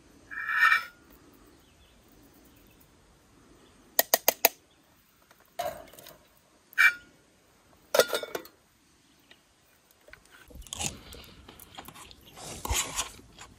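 Eating sounds at a meal: utensils clicking and scraping on a plate in short separate strokes, with a run of quick clicks about four seconds in, then chewing near the end. A brief high tone sounds about half a second in.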